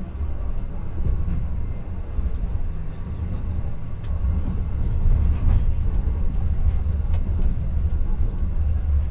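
Sapporo streetcar running along its street track, a steady low rumble of motors and wheels on the rails heard from inside the front of the car, with a few faint clicks.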